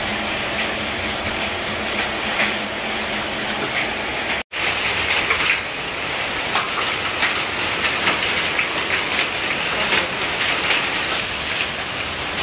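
Hailstorm with heavy rain: a dense, steady hiss of falling rain with many small, sharp clicks of hailstones striking surfaces. The sound cuts out for an instant about four seconds in.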